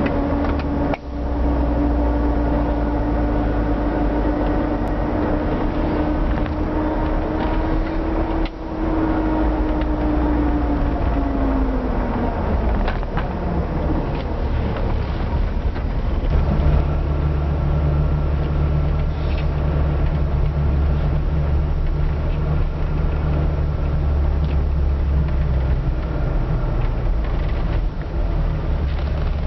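Range Rover driving with a steady whine over the road rumble; the whine rises a little, then falls in pitch and fades out about halfway through as the car slows. The owner suspects the differential.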